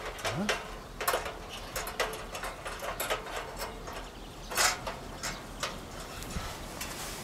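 Stainless-steel wire grate of an Esbit folding charcoal grill being shifted on the grill's steel frame, giving a series of irregular light metallic clicks and rattles, with a louder cluster a little after halfway.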